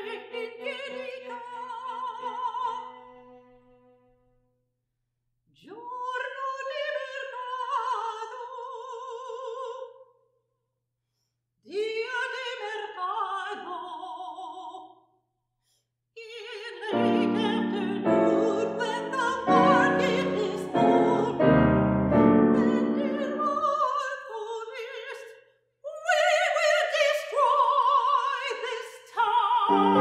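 A soprano sings in a contemporary classical chamber piece: short phrases separated by brief silences. About halfway in, loud piano chords with deep bass notes come in under her voice and carry on to the end.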